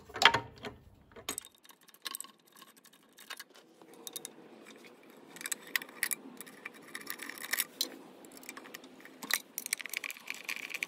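Hand tools and loose metal parts clicking and jingling as the left engine side cover of a Honda CT70 is unbolted and pulled off the flywheel. Scattered sharp clicks, the loudest just after the start, with short bursts of light metallic rattling.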